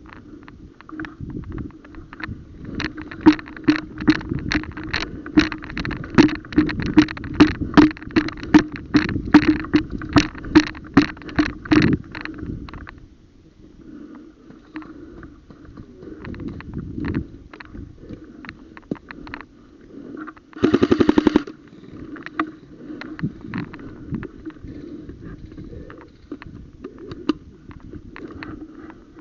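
Airsoft guns firing: a long run of rapid shots in the first twelve seconds, then scattered shots, and a short full-auto burst of about a second around two-thirds of the way in.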